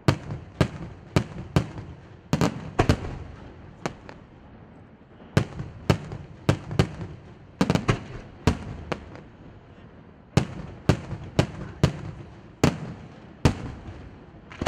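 Aerial firework shells bursting, more than twenty sharp bangs in uneven volleys with short pauses between them.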